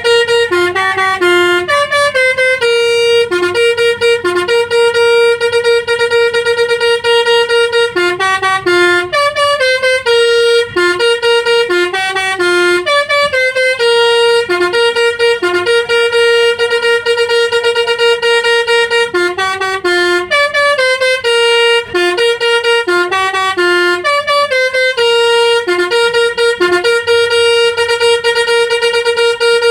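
Bus telolet horn, a set of musical air horns playing a quick melody of stepping notes over a repeated held note, with short breaks between phrases.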